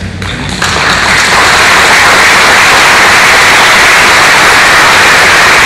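Audience applauding. The clapping breaks out about half a second in, swells within the first second, then holds loud and steady.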